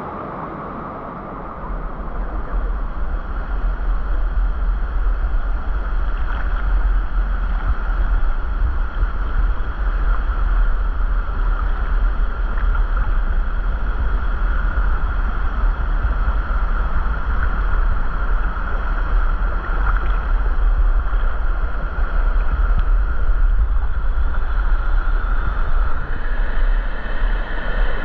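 Steady roar of a waterfall's rushing water, with a deep low rumble. It grows louder about two seconds in and then holds.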